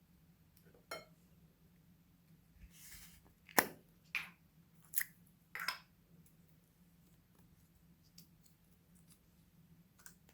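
A few short, separate clicks and soft squishy sounds with quiet between them, from slime and its add-ins being handled; the sharpest click comes about three and a half seconds in.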